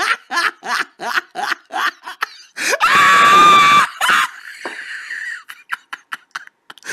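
A man laughing hard in quick, even bursts, about three a second, then a loud, high scream held for about a second, roughly three seconds in.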